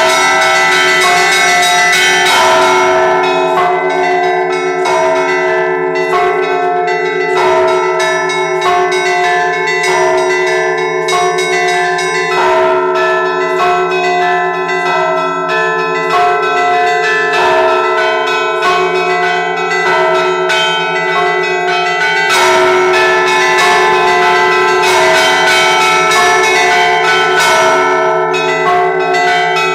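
Russian Orthodox church bells ringing a razgonny zvon, the festive peal after the Sunday liturgy: several bells of different pitch in a continuous pattern, with a deep bell humming underneath, middle bells struck at about two a second, and small high bells chiming quickly over them.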